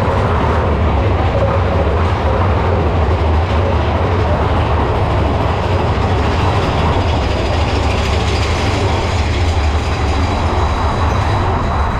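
Big Thunder Mountain Railroad's mine-train roller coaster running along its track, heard from inside a car: a loud, steady running noise with a heavy low rumble.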